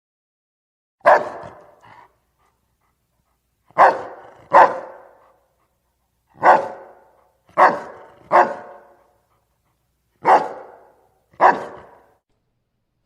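A dog barking: eight short barks, some single and some in quick pairs, with pauses of a second or more between them.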